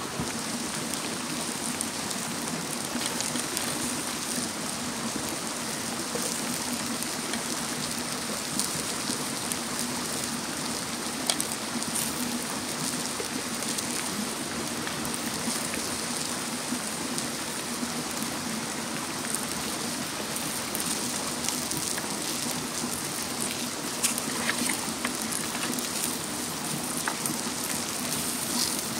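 Steady sizzling of food cooking on a hot stone over a fire, with scattered crackles and pops throughout.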